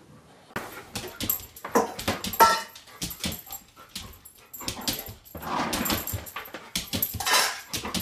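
A dog whimpering in short pitched cries, among many sharp clicks and rattling noises.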